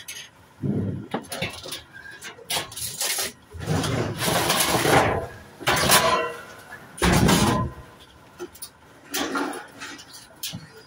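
Scrap metal clattering and crashing as it is handled and dropped, in a string of irregular crashes; the loudest come about four to five seconds in and again about seven seconds in.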